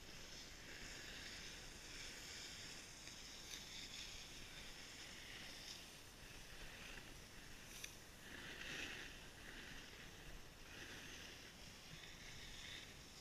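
Faint hiss of snowboards sliding and carving over packed snow, swelling in soft surges as the riders turn.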